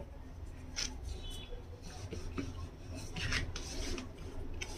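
Faint rubbing and scraping of a hand pressing and flattening a flour-dusted ball of wheat dough on a tiled surface, with a few light knocks.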